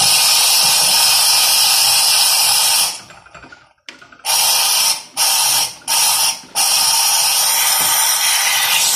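Home pump espresso machine's steam wand venting steam with a loud, steady hiss. It cuts out for about a second around three seconds in, then starts again with three short breaks. The strong steam flow shows good steam pressure, which the owner judges excellent.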